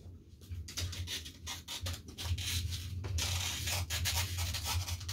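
Irregular scraping and rubbing handling noises with scattered clicks, growing denser and louder about halfway through, over a steady low electrical hum.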